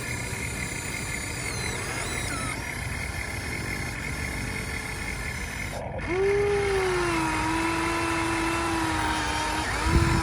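Radio-controlled model hydraulic excavator working, its pump and motors giving a steady mechanical whine with hiss. About six seconds in the sound cuts, and a louder whine starts high, dips and holds steady. A short low thump comes near the end.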